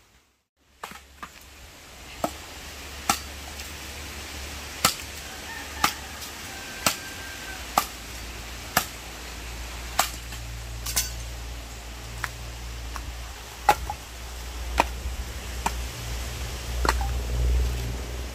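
A series of sharp chopping strikes, roughly one a second, over a low rumble.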